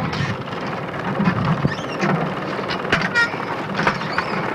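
Steady rumbling noise on an old home-movie sound track, with scattered clicks and a few faint voices.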